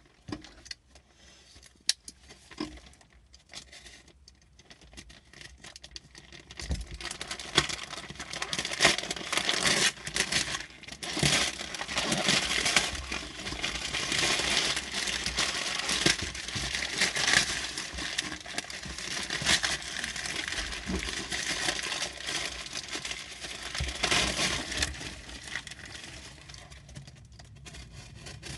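Paper and plastic packaging being unwrapped by hand, crinkling, rustling and tearing. It starts with a few scattered handling clicks, becomes busy, continuous crinkling from about seven seconds in, and eases off near the end.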